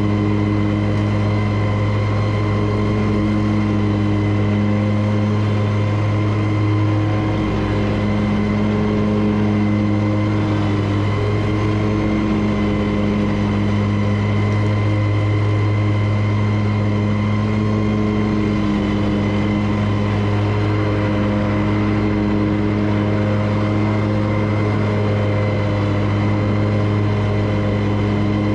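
Commercial lawn mower engine running at a steady high speed while mowing grass, with no change in pitch.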